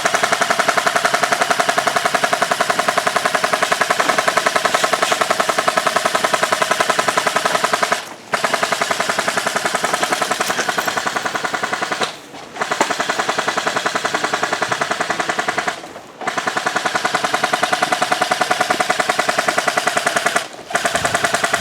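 Airsoft gun firing full-auto in long, rapid bursts, broken by four short pauses.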